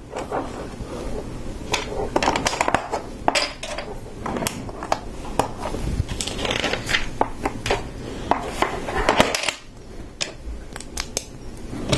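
Plastic LEGO pieces clicking and clattering as bricks are pressed onto the build and picked out of a pile of loose parts, in a quick, irregular run of small sharp clicks.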